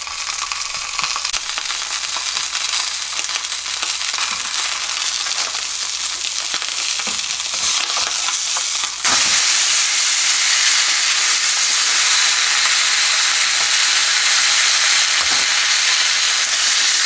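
Salted mackerel fillet sizzling in oil in a nonstick frying pan, skin side down, under a loose sheet of parchment paper; a steady frying hiss that turns suddenly louder and brighter about nine seconds in.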